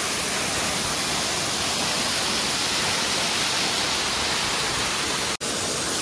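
Steady rush of a waterfall pouring down a rock face and splashing onto boulders into a stream, heard up close, with a split-second dropout about five and a half seconds in.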